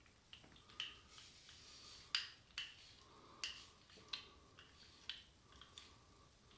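Faint, short, crisp scrapes of a HeadBlade S4 Moto four-blade razor drawn over lathered scalp stubble, a stroke about every half second to a second.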